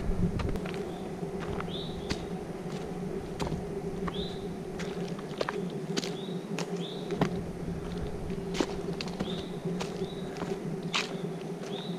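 A hiker's footsteps on a woodland trail, irregular sharp steps about once or twice a second, over a steady low buzzing hum. Short high rising chirps repeat every second or two.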